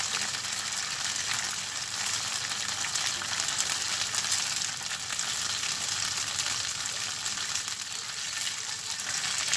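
Mustard-coated rabbit pieces frying in hot oil in a pan: a steady sizzle with fine crackling as the meat browns.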